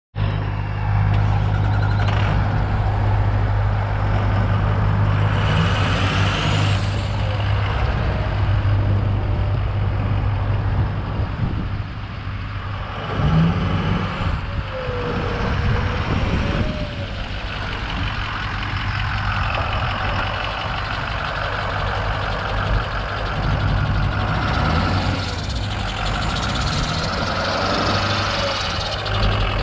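2006 Ford F-350 dump truck's engine running as the truck drives along a dirt lane, a steady low hum that drops off about twelve seconds in and comes back later.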